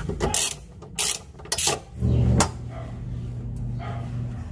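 Short metallic clicks and knocks of a socket and breaker bar being worked on a car's underbody bolt. From about two seconds in, a steady low hum sets in.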